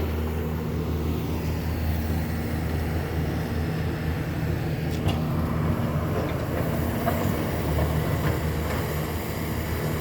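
Heavy farm machinery engine running steadily at constant speed, a low drone with a few faint clicks.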